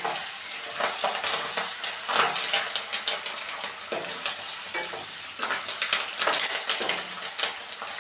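A tempering of peanuts, dried red chillies, green chillies and freshly added curry leaves sizzling in hot oil in a non-stick kadai. A steel ladle stirs it, scraping and knocking against the pan again and again.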